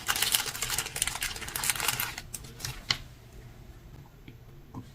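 Rapid crackly clicking and rustling of small items being handled, dense for about three seconds, then only a few scattered clicks.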